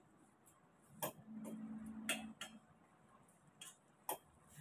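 A utensil clinking against the side of a stainless steel pot while prawns are stirred in boiling water: four sharp clicks at uneven intervals.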